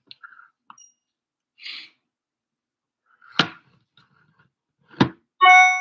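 Two sharp knocks about a second and a half apart, then, near the end, a short electronic chime of several tones ringing together.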